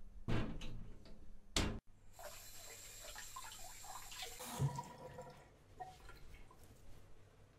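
Bathroom tap running into a sink with water splashing, as someone washes their face. A few sharp knocks come in the first two seconds, the loudest just under two seconds in, and there is a dull thump about halfway through.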